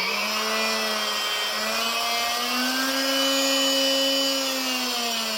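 Corded 3.5-amp oscillating multi-tool running at speed with a steady high-pitched buzz. Its pitch rises slightly partway through and eases down near the end.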